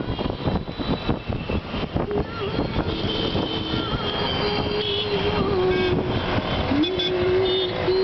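Road traffic noise, with a long steady tone, wavering slightly, coming in about two seconds in and holding on over it.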